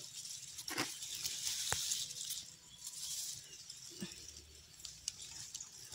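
Rustling of tall grass and undergrowth brushing against the phone as it moves through, coming in a few surges, with a few light knocks and clicks from handling.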